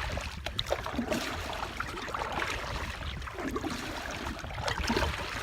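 Water lapping and splashing against the hull of a small boat, with wind rumbling on the microphone.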